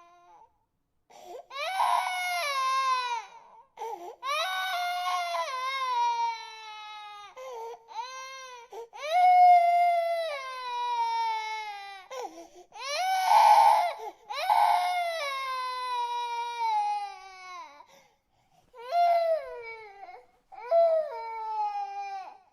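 A baby crying: a string of long wails, each falling in pitch, broken by short gaps, with the loudest cries about ten and thirteen seconds in.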